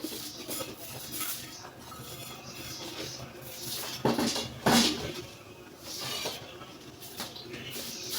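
A spoon scraping and knocking against a frying pan as pepper chicken is scooped out onto a plate, with two louder knocks about four and five seconds in.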